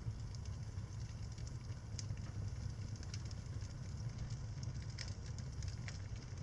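Wood fire crackling in a fireplace, with a few sharp pops over a steady low rumble.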